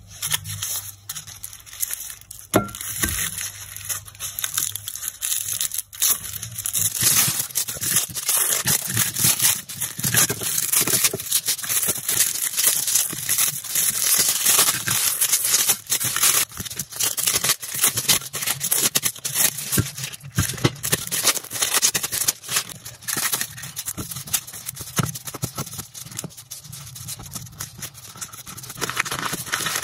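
Close-up crinkling and tearing of wrapping peeled off a boiled cornflour brick by gloved hands: a plastic bag, then aluminium foil, then the torn paper packet, with a steady run of crackles and small rips.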